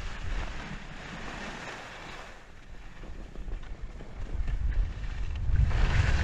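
Wind buffeting an action camera's microphone while skiing downhill, with the hiss of skis sliding over groomed snow. The rush dies down in the middle and builds up louder again near the end as speed picks up.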